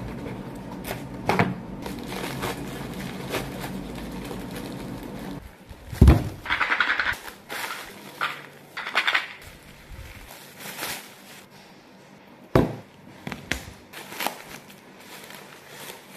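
Parcels being handled and unwrapped by hand: knocks and clicks of a cardboard box, then plastic mailer wrapping crinkling as it is pulled open. A few thumps on the table, the loudest about six seconds in.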